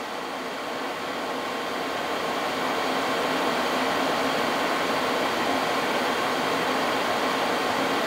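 Vevor 8,000-watt diesel air heater's blower fan running on in its cool-down cycle after shutdown: a steady rush of air with a faint steady whine, growing a little louder over the first few seconds.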